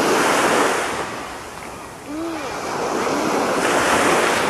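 Small sea waves washing onto the shore: a hissing rush of surf that swells, eases about two seconds in, and builds again.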